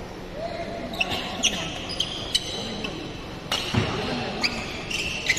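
Badminton rally: a string of sharp racket hits on the shuttlecock, under a second or so apart, with short high squeaks of shoes on the court floor between them.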